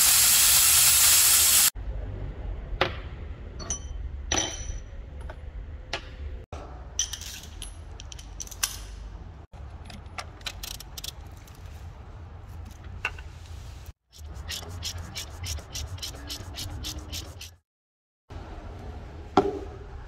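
A short loud hiss from an air-powered vacuum oil extractor, then after cuts the clicks and knocks of metal tools being handled, with a quick run of socket-ratchet clicks as a fastener under the car is turned.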